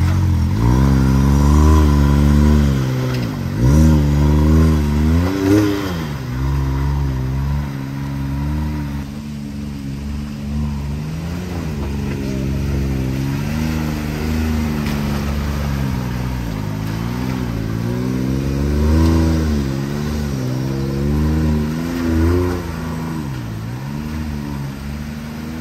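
Can-Am side-by-side engines revving up and easing off again and again as the machines crawl through a creek and climb rock ledges, with the hardest revs in the first few seconds. The flowing creek rushes faintly underneath.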